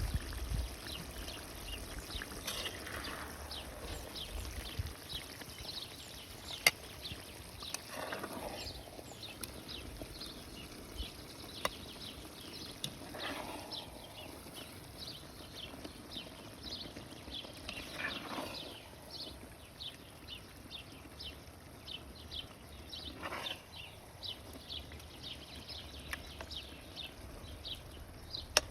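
A small animal chirping over and over, a few short high chirps a second, with a lower, falling call about every five seconds and a couple of sharp clicks.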